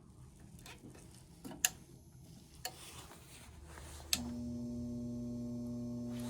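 A few sharp clicks, then about four seconds in a Trane 90% furnace's motor switches on with a sudden steady electric hum, most likely the draft inducer motor being called on.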